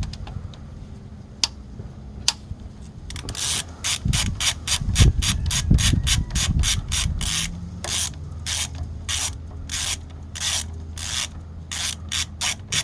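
Hand ratchet wrench clicking as it is swung back and forth to back out a bolt: a quick run of sharp clicks starting a few seconds in, slowing to wider-spaced clicks near the end, with a low rubbing rumble under the fastest part.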